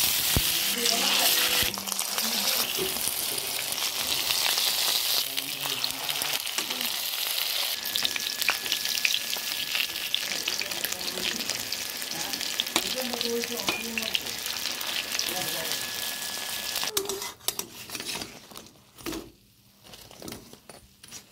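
Battered ash gourd leaf fritters frying in hot oil in a wok, sizzling loudly, with a metal spatula scraping and turning them. The sizzle fades sharply about seventeen seconds in, leaving a faint sizzle and occasional spatula scrapes.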